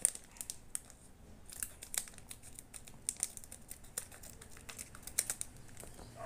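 Scissors snipping across the top of a foil trading-card booster pack, the wrapper crinkling in a string of small, sharp clicks.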